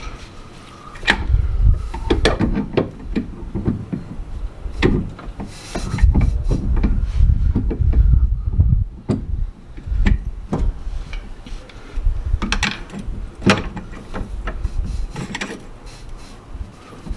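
Metal parts clicking, knocking and rubbing as the cylindrical clutch-pump housing of a Honda rear differential is worked by hand onto the differential, with dull low thumps in between.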